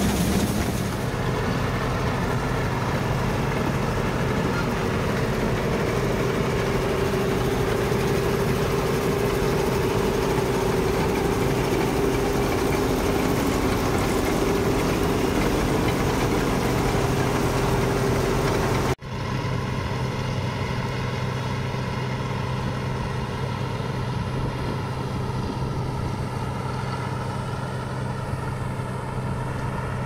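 Combine harvester running steadily at work: a continuous engine drone mixed with the whir and rattle of its threshing and cutting machinery. About two-thirds through, the sound drops out for an instant and comes back a little quieter and steadier.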